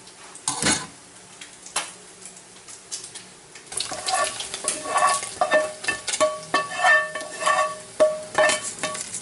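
A plastic spatula scraping fried bacon out of a nonstick frying pan into a wire mesh strainer, the pan and spatula knocking against the metal strainer. A few separate knocks come at first, then from about four seconds in a quick run of scrapes and knocks, each ringing briefly.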